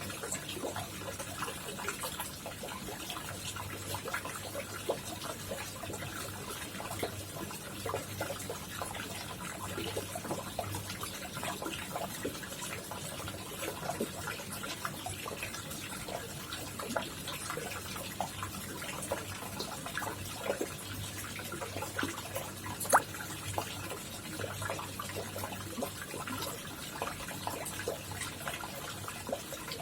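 Koi pond water trickling and splashing steadily, with many small drips and plops and one sharper splash about three-quarters of the way through. A faint low hum comes and goes underneath.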